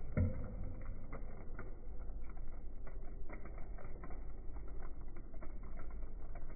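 Sticky soda slime crackling and clicking irregularly as it is stretched and drips back into a plastic tub, over a low steady hum.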